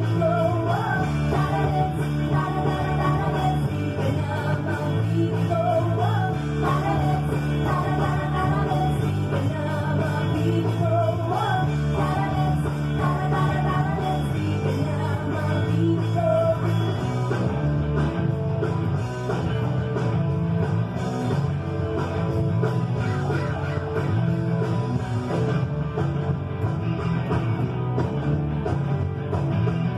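Electric bass guitar played along to a rock song with a singer. The sung melody is plain through the first half or so and thins out after.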